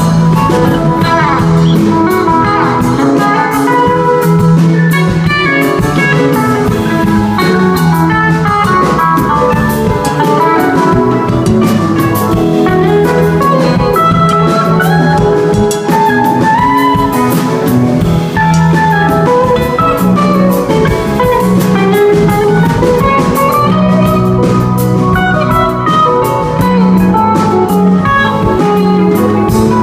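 Live rock band playing a jam: an electric guitar picking a melodic lead line over a drum kit and a steady low part.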